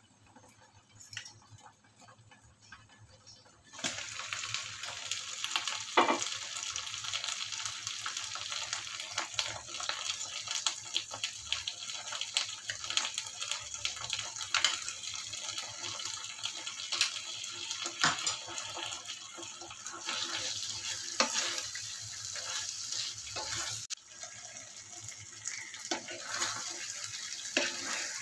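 Marinated chicken in a curd-and-cream gravy sizzling in a frying pan while a spoon stirs it, with occasional sharp knocks of the spoon against the pan. The sizzle starts suddenly about four seconds in, after a quiet start.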